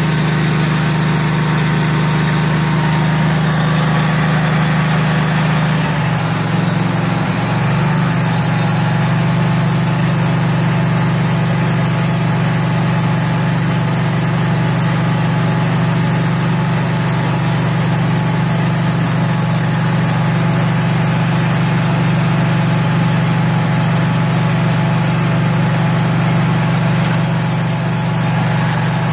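Engine of a portable bandsaw sawmill running steadily, its pitch shifting once about six seconds in and then holding.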